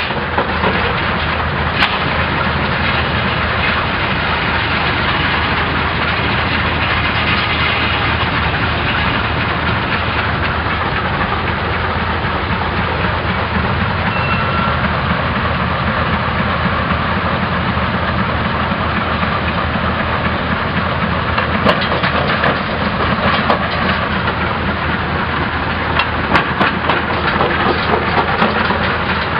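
Western Wheeled Scraper Co. No. 1 "Aurora" rock crusher running, belt-driven by a steam traction engine: a steady, loud mechanical clatter and rumble of the working machinery. A run of sharp cracks and knocks comes in over it in the last several seconds.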